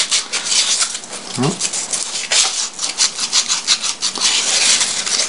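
Wood sandpaper rubbed in quick back-and-forth strokes against the cut plastic edge of a screw-cap lid, smoothing off burrs left by the cutter.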